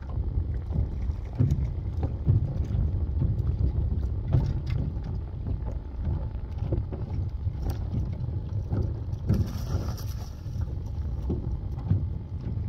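Wind buffeting the microphone over water lapping against a mud boat's hull, with scattered small knocks and a brief hiss about ten seconds in.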